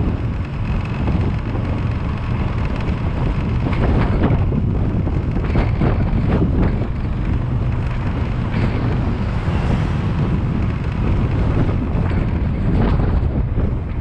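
Wind buffeting the microphone of a camera moving at road speed, heard as a steady low rumble with frequent gusts.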